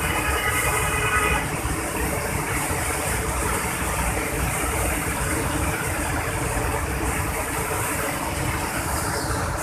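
Mountain river water pouring over a wide rock ledge in a waterfall: a loud, steady rush of falling, churning water, very noisy. A faint pitched tone sits over it for the first second and a half.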